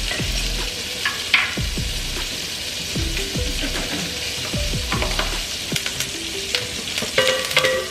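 Pieces of lamb rack frying in a pan, a steady high sizzle throughout.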